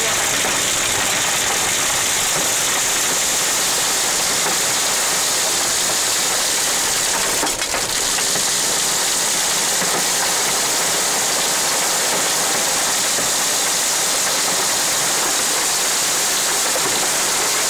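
Thunderstorm downpour hitting a car's roof and windscreen, heard from inside the cabin as a loud, steady, dense hiss. The level dips briefly about seven and a half seconds in.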